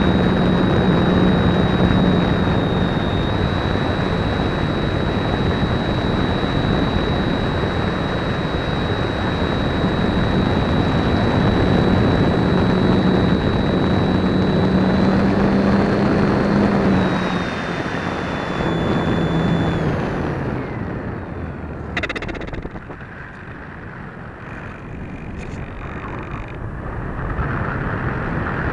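Onboard sound of an RC electric glider in flight: the electric motor and propeller running with a steady whine over rushing air. About two-thirds of the way through, the motor winds down and stops, leaving wind rushing past as the plane glides, with one sharp click a little later.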